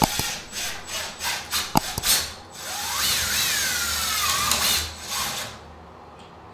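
Cordless impact driver driving a 1-inch screw through a plastic mounting plate into the wall: a few short trigger bursts in the first two seconds, then a longer run of about three seconds whose whine rises and then falls, stopping about a second before the end.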